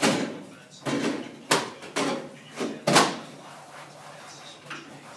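A series of sharp knocks and clunks, about six in the first three seconds, as a golf cart's sand bottles and cooler are handled and checked; then it goes quieter.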